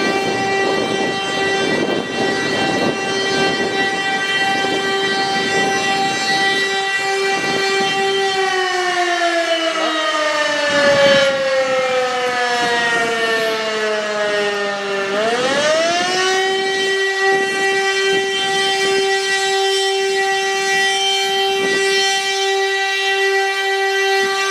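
Motor-driven fire brigade alarm siren sounding a steady wail. About eight seconds in, the pitch sinks slowly for some seven seconds as the motor is cut and the rotor coasts down. It then spins back up to the same steady tone, the pause between the long blasts of the fire brigade call-out alarm.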